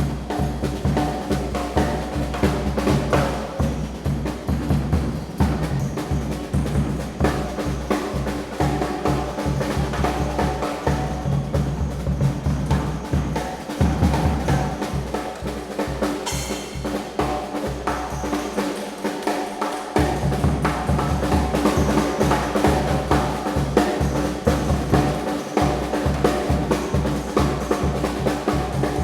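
Brass band music with the snare and bass drum carrying a busy, driving beat. The deep bass drops out for a couple of seconds about two-thirds through.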